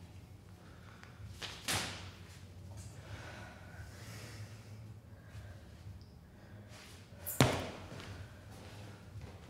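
Person dropping off a pull-up bar and landing on the floor with a sharp thud about seven seconds in. A smaller sharp sound comes about a second and a half in.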